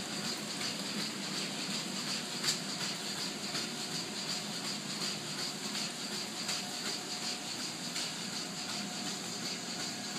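Steady hum and hiss of industrial machinery and ventilation on an offshore oil platform, with a faint constant high whine. A few light ticks sound through it, the sharpest about two and a half seconds in.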